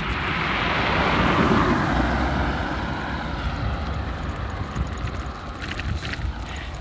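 A car passes close by, its tyre and engine noise swelling to a peak about a second and a half in and then slowly fading, over steady wind rush on the microphone of a moving bicycle rider's phone.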